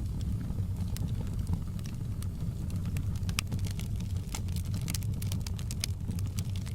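Wood fire crackling in a fireplace: irregular sharp pops and snaps that come thicker from about halfway in, over a steady low rumble.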